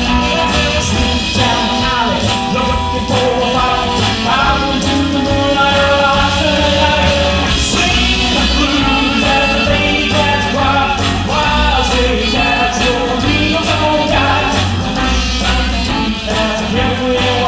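A live band playing a rockabilly tune, with drums keeping a steady beat under a pulsing bass line and a bending melodic lead.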